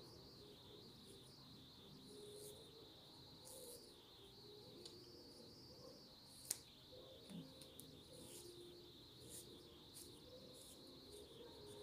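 Near silence: room tone with a steady faint high-pitched hiss, and faint rustling and a light click, about six and a half seconds in, as cotton cord ties are knotted on a cloth mask.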